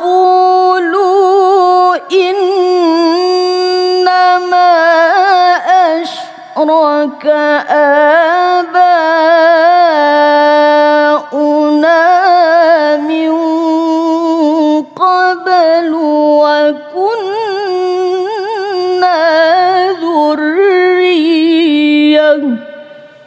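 A woman's voice reciting the Quran in the melodic tilawah style, with long held notes decorated by wavering runs and a few short breaks for breath. The recitation stops shortly before the end.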